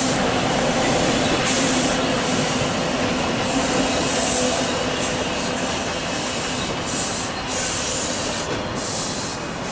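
TTC subway train rolling past on open track, a steady rumble with a high hiss from the wheels that swells and fades every second or so. It grows a little quieter in the second half as the train pulls away.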